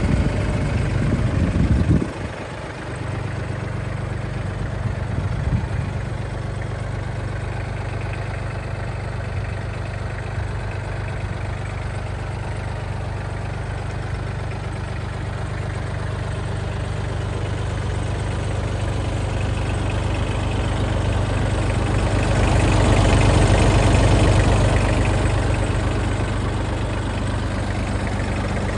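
Mitsubishi MRT-18DW crawler tractor's engine idling steadily. There is a brief louder rumble in the first two seconds that cuts off sharply. The engine grows louder for a few seconds past the middle.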